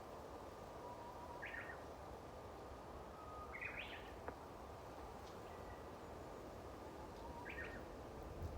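Japanese bush warblers singing faintly: three songs, each a soft low whistle followed by a brief higher flourish, over low background noise. A single faint click about four seconds in.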